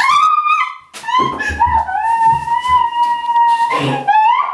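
A woman screaming in high-pitched shrieks: a short one at the start, then a long held scream from about a second in.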